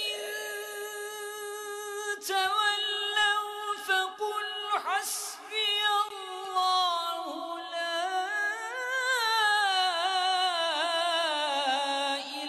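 Unaccompanied solo voice reciting the Quran in the melodic tilawat style: long held, ornamented phrases with a wavering vibrato. The line climbs to a high point about nine seconds in and then winds downward.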